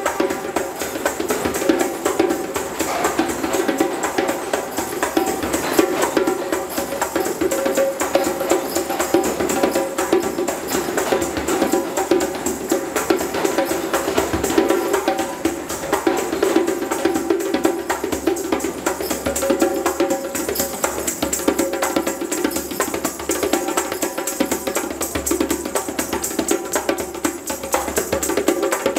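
A djembe played with bare hands in a fast, continuous rhythm of dense strokes.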